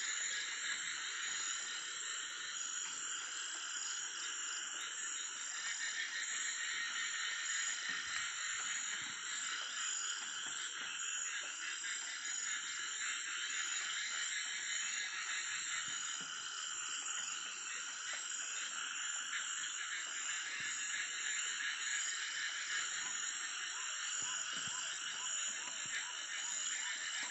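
Frog chorus: many frogs calling at once in a dense, unbroken stream of rapid calls, with a steady high tone above it.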